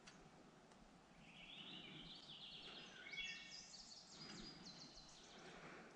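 Faint songbird singing a quick run of high chirping notes that step up and down in pitch, over the quiet hiss of woodland stream ambience.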